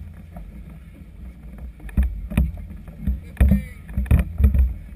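Strong wind buffeting the camera microphone as a low rumble, with choppy water and sharp thumps and knocks coming several times, most in the second half.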